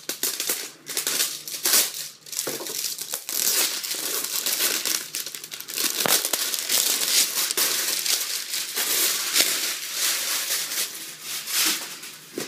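Plastic packaging crinkling and crackling as it is crumpled and pulled apart, a dense, irregular rustle.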